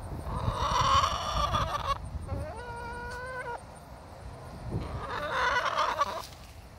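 Chicken calling: a loud drawn-out call about half a second in, then a steady, level-pitched held call of about a second, and another drawn-out call near the end.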